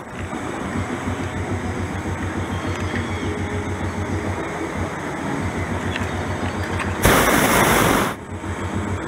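Hot-air balloon's propane burner: a steady rushing with a fast low flutter, then a louder blast about seven seconds in that lasts about a second.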